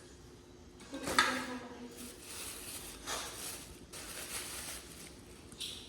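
Handling noises, with several short rustles and knocks as groceries are unpacked, and a brief voice-like sound about a second in.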